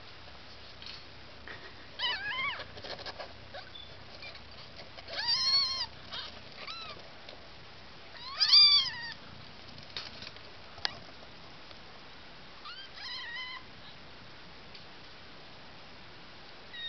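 Newborn kittens mewing: four short, high-pitched cries spaced a few seconds apart, the third the loudest. A single sharp click comes between the last two.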